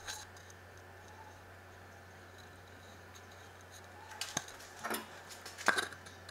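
Light clicks and taps of hand tools being handled on a workbench: one click at the start, then a quick run of sharper clicks and knocks in the last couple of seconds, over a low steady hum.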